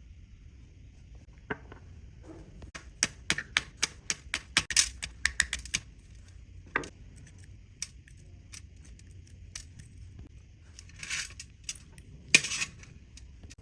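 Light metallic clicks and taps of small tools and watch parts handled on a workbench: a quick run of clicks a few seconds in, then scattered single clicks, and two short rattles near the end, the second the loudest.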